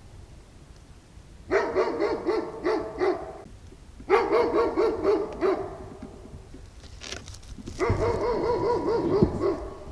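Livestock guardian dog barking in three rapid strings, each lasting about one and a half to two seconds, with short pauses between them. It is alert barking at a person it has heard moving in the woods.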